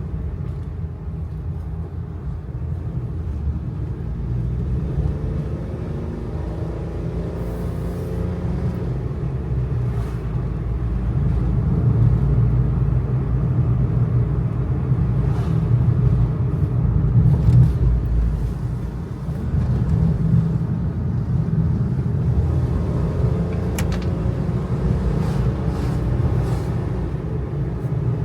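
Kei truck driving on a mountain road, heard from inside the cab: the small 660 cc engine and tyre noise make a steady low rumble that swells for several seconds about halfway through and dips briefly after, with a few short clicks and rattles.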